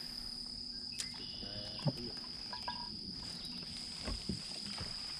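A steady, unbroken high-pitched insect trill, like night crickets, with a few faint clicks and knocks.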